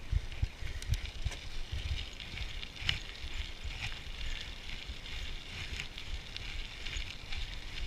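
Wind buffeting an action camera's microphone in uneven low rumbles, over a steady high hiss with scattered crackles and ticks.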